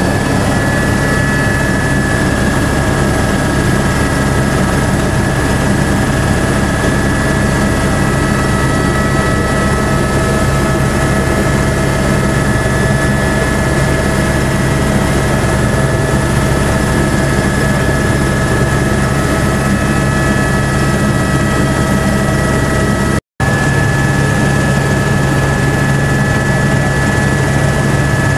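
Helicopter in flight heard from inside the cabin: a steady, loud rotor and engine drone with a constant high whine over it. The sound cuts out for a split second about two-thirds of the way through.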